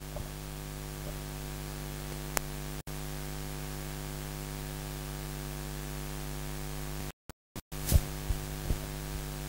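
Steady electrical mains hum with faint hiss from the recording's microphone chain. It cuts out briefly just before three seconds in and again in several short gaps a little after seven seconds, with a single click between two and three seconds in and a few faint clicks near the end.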